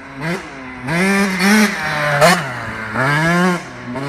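KTM dirt bike engine revving hard as it is ridden past at speed, its pitch rising and dropping about four times as the throttle is opened and closed.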